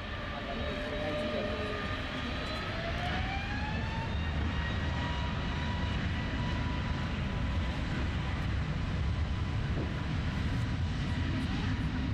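Airbus A320neo's twin turbofan engines spooling up to takeoff thrust. A rising whine levels off about four seconds in and then holds steady over a deep, building rumble.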